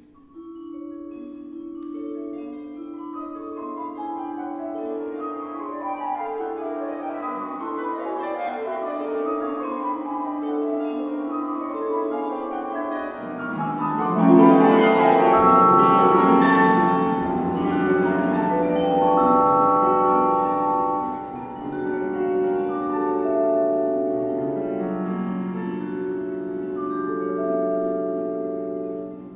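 Chamber ensemble of flute, clarinet, harp, piano and vibraphone playing contemporary music: long, overlapping held notes with ringing vibraphone tones. About halfway through it swells suddenly to its loudest with a bright struck chord, then carries on more evenly.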